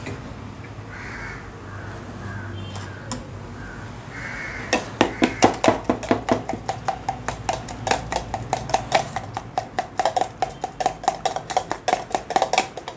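Metal spoon beating an egg-and-Maggi-noodle mixture in a stainless-steel pot, clinking rapidly against the side about six times a second, each strike ringing the pot; it starts about five seconds in and stops just before the end.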